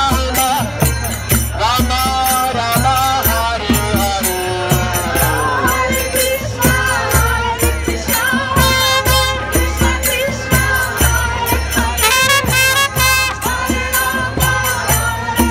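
Devotional street chanting: voices singing to a hand-pumped harmonium drone, over a steady barrel-drum beat about twice a second with a bright metallic jingle.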